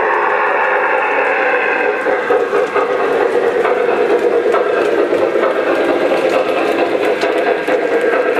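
Lionel JLC Union Pacific Challenger O-gauge model steam locomotive running with its freight train over three-rail track: a steady mechanical running noise of the motor and wheels on the rails.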